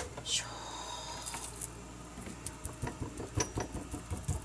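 Hands patting and rubbing seasoning into raw chicken breasts on a plastic cutting board: a quick run of soft, wet pats that begins a couple of seconds in. Near the start there is a single click and a short scrape.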